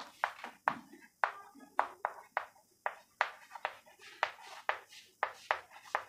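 Chalk writing on a chalkboard: a run of sharp taps, about two a second, as each stroke of chalk strikes and drags across the board.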